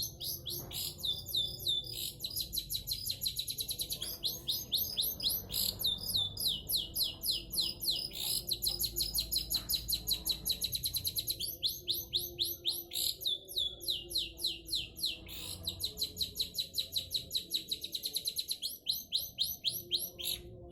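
Long-tailed shrike (cendet) singing in full song: long, fast runs of high, rapidly repeated sweeping notes, about five or six a second, broken by brief pauses every few seconds.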